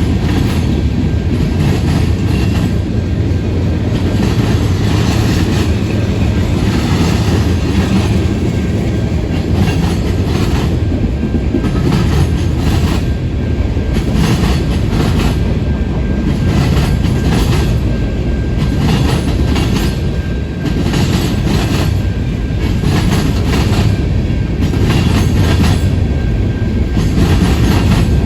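Freight train rolling past: a steady low rumble of cars and wheels, with a run of clacks as the wheels cross rail joints.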